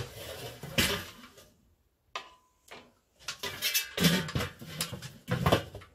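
Metal clanks and scrapes from the lid of a charcoal kettle grill and a metal pizza tray being handled, in a string of knocks and short scraping bursts.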